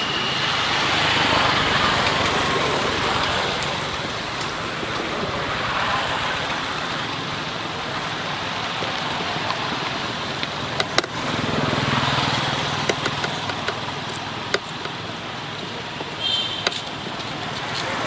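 Steady rushing outdoor background noise that swells and fades every few seconds, with a few sharp clicks midway and a brief high chirp near the end.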